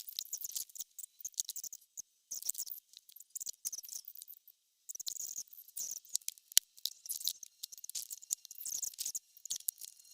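Scattered light clicks and rattles, high-pitched and irregular, with short pauses between bursts, like small hard objects being handled.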